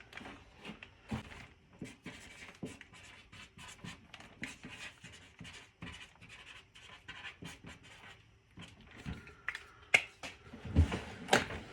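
Small, irregular clicks, taps and scrapes of hand work on an electric guitar's metal hardware and screws during disassembly, with a low knock and then a sharp click near the end.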